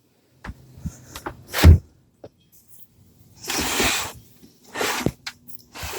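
A few light knocks and one heavy thump, then two stretches of scraping hiss: a compact fridge being handled and slid into place on the floor.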